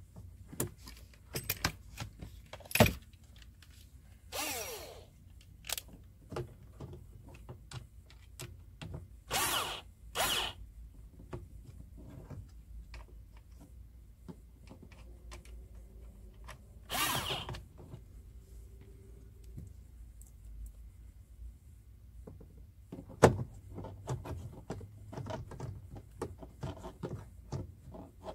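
Cordless drill driving screws into a door speaker's mounting in about four short bursts, each under a second. Sharp clicks and knocks from handling the screws and the plastic door panel come between the bursts, the loudest a knock some five seconds before the end.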